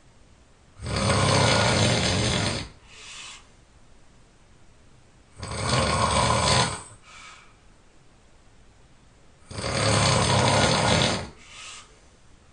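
A person snoring very loudly: three long, rasping snores about four seconds apart, each followed by a short, much quieter breath.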